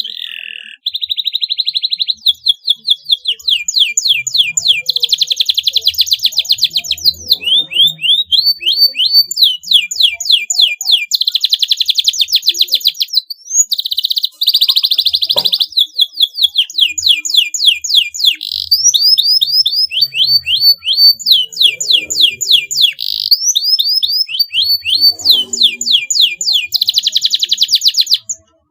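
Domestic canary singing a long, vigorous song of fast trills and rapidly repeated high notes, with a short break about halfway through.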